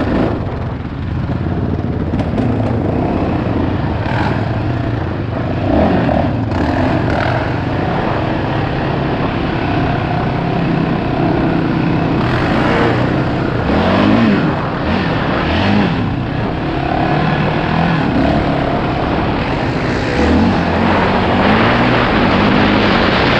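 Single-cylinder four-stroke off-road engine riding a trail, its pitch rising and falling as the throttle is worked, with wind and rushing noise on the helmet-mounted microphone.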